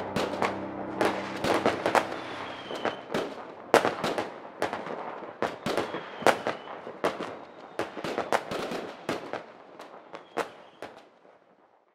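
Fireworks going off: an irregular string of sharp bangs and crackles with a few faint short whistles, thinning and fading away near the end.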